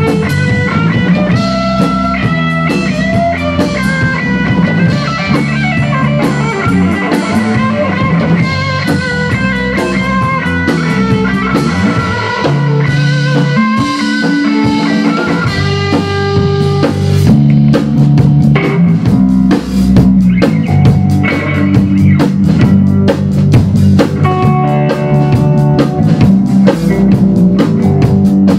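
Rock band playing an instrumental passage: electric guitar melody lines over bass guitar and a drum kit. The drums and cymbals get busier about two-thirds of the way through.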